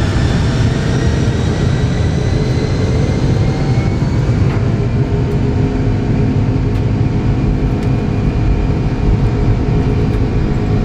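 Boeing 747SP's four jet engines at takeoff thrust during the takeoff roll, heard from the cockpit: a loud, steady heavy rumble, with whining engine tones that rise over the first few seconds as the engines spool up, then hold steady.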